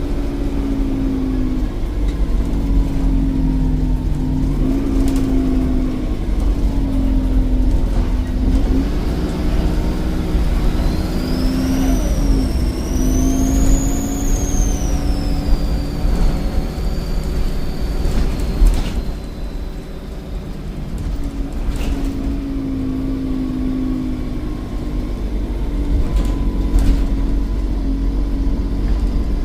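Volvo D7E 7.1-litre diesel engine of a Volvo B7RLE bus running under load with its ZF gearbox. About ten seconds in, a high turbo whistle rises, peaks and falls away over several seconds. A few short knocks and rattles come through.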